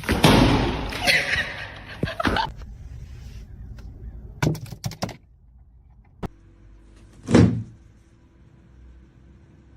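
A series of knocks and thuds, some in quick succession, with a louder thud near the end and a brief noisy rush at the start.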